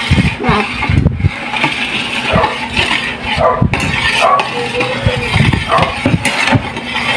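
Metal spoon clinking and scraping against a stainless steel pot of juice, in irregular strokes, with a few low knocks on the table.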